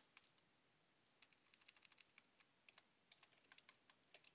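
Faint typing on a computer keyboard: a scatter of light key clicks that begins about a second in, after a short pause.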